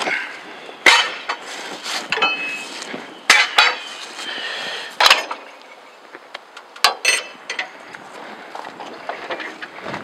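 Sharp metallic clanks and knocks, several in a row, some ringing briefly, as a log is levered with a cant hook and clamped on the steel bed of a Norwood HD36 portable sawmill.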